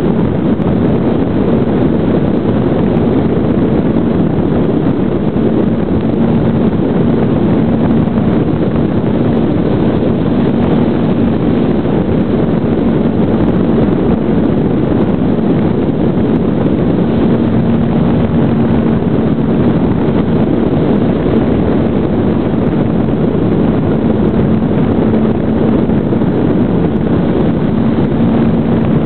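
Steady wind rushing over the microphone of an onboard camera in flight, with a steady low drone from a GWS Slow Stick's brushless electric motor and propeller underneath.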